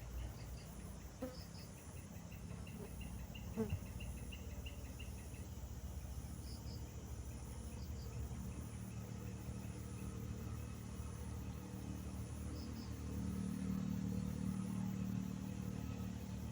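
Insects chirping in a steady, pulsing high drone with scattered short chirps, over a low rumble; a brief knock about three and a half seconds in.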